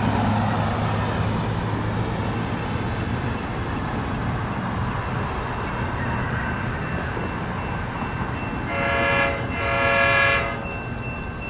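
Diesel commuter train horn sounding two blasts of about a second each, a chord of several notes, over a steady low rumble, as the Altamont Corridor Express train approaches the station.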